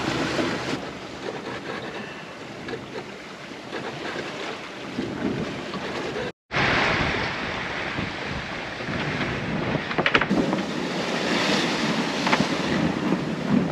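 Wind buffeting the microphone over the rush of sea water and waves around a sailboat under way. The sound breaks off for a moment about six seconds in, and the wind and water are louder after it.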